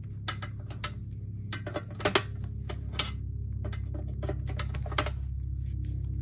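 Irregular small metallic clicks and taps of a wrench working loose a threaded standoff screw on a monitor's power board, with sharper knocks about two and five seconds in. Under them, the low drone of an airplane passing overhead grows slowly louder.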